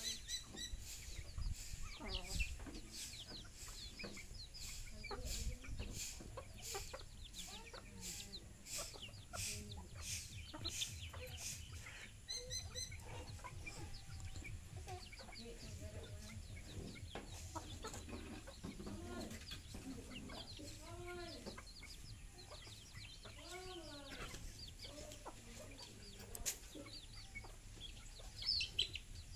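A small flock of chickens clucking softly as they feed, with thin peeping from chicks. Several drawn-out clucks come in the second half.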